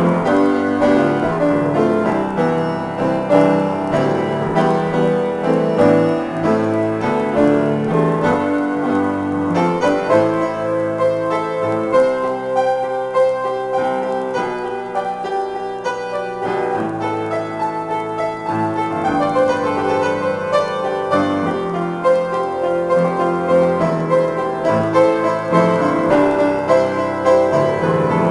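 Upright piano played solo in a free improvisation, continuous chords and melody notes sounding together without a break.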